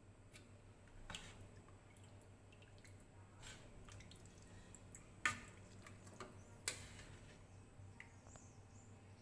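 Quiet room with a low hum and a few scattered sharp clicks and taps, the loudest a little over five seconds in and another nearly two seconds later.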